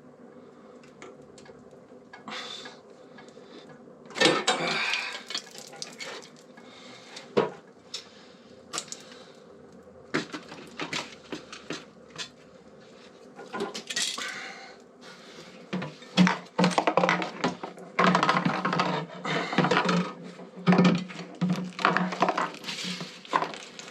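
Metal hand tools and motorcycle parts clinking, scraping and clattering in a series of short bursts, busier in the second half, as fasteners are worked loose.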